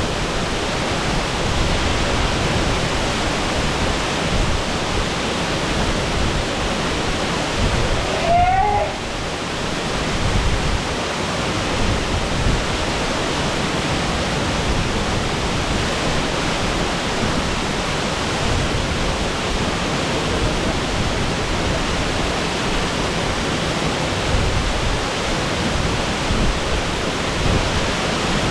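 Shasui Falls pouring in a steady, unbroken rush of falling water. A brief voice rises above it about eight and a half seconds in.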